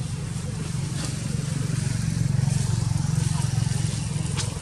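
An engine running steadily: a low, even hum that grows a little louder in the middle.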